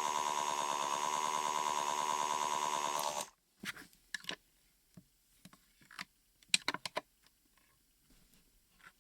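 Mini washing machine motor running with a steady buzzy hum, which cuts off suddenly about three seconds in. Then come scattered light clicks and taps.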